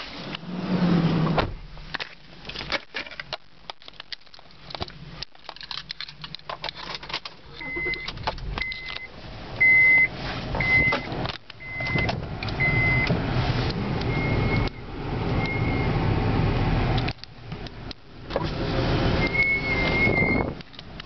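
Inside a car: low engine rumble, repeated knocks from the camera being handled, and a run of short high beeps about once a second in the middle, with a longer wavering beep near the end.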